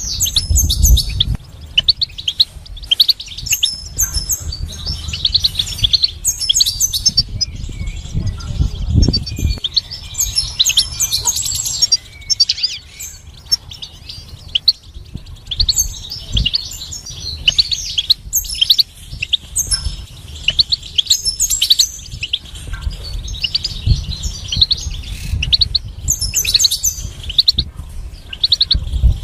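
European goldfinch singing: fast twittering runs of short, high chirps and trills in bursts separated by brief pauses. A few low thuds are heard among the phrases.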